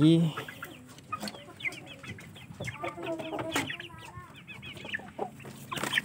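Chickens clucking, with a quick run of short, high chirping calls in the middle and a few light knocks.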